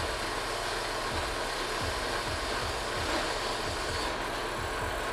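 Horizontal metal-cutting bandsaw running, its blade cutting through metal exhaust tubing. The cut makes a steady, even grinding hiss over the motor's low hum, with uneven low knocks underneath.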